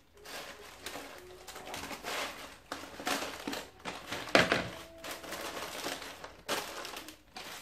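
Plastic packaging and gold metallic tissue paper crinkling and rustling as items are pushed into a basket, in irregular rustles with the loudest about four seconds in.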